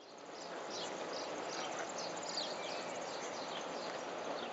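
Outdoor ambience fading in: a steady background hum with many short, high, falling bird chirps over it.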